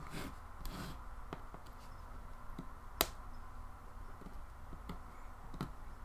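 Faint scattered clicks and ticks of a small magnetic precision screwdriver working on the screws inside an opened Nexus 7 tablet, with one sharper click about halfway through.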